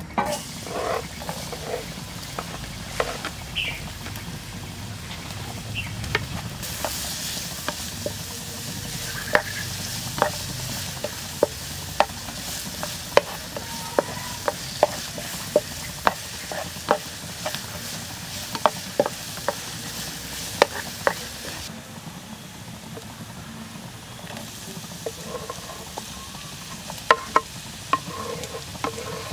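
Minced garlic sizzling in hot oil in a frying pan, stirred with a wooden spatula that taps and scrapes against the pan about once a second. Near the end, chopped shallots and onion are scraped off a wooden board into the pan.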